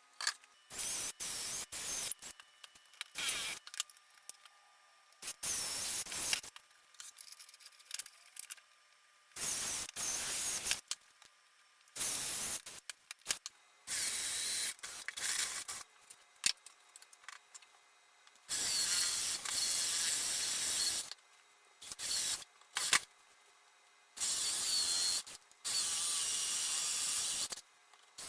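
A 3/4-inch Forstner bit drilling holes into a wooden workbench top, heard as a series of short, hissy cutting bursts, each stopping abruptly and separated by pauses.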